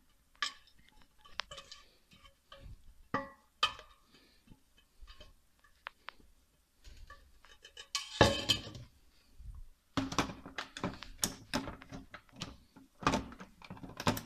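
A spoon scraping tomato sauce out of a cooking pot into a blender jug: irregular clinks, scrapes and knocks of utensil against pot and jug, loudest about eight seconds in. Near the end come more knocks as the jug is handled and set onto the blender base.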